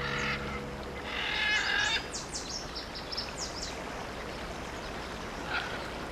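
Wild birds calling: a harsh chattering call, then a run of quick, high, falling whistled notes, and one short call near the end, over a steady outdoor hiss.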